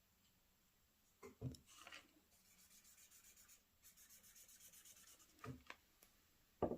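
Cotton swab rubbed quickly back and forth over paper, spreading ink in a soft scratchy rhythm of about six strokes a second, in two runs. A few light knocks come before and after, from things being handled.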